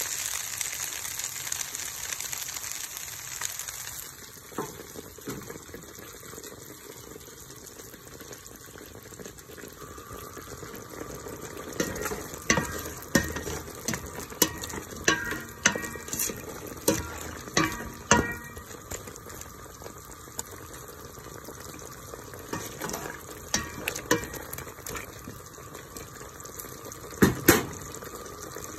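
Pansit noodles sizzling as they stir-fry in a pan for the first few seconds, then chicken adobo simmering in a pot. About halfway through comes a run of ringing knocks of a utensil against the pot as it is stirred, and two louder knocks near the end.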